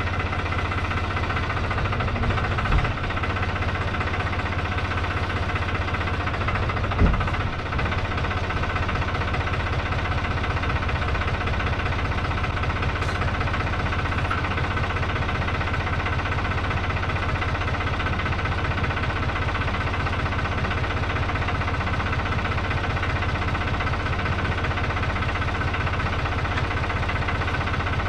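Tractor engine running steadily at an even speed, with a rapid fine pulse. Two brief thumps stand out, about three and seven seconds in.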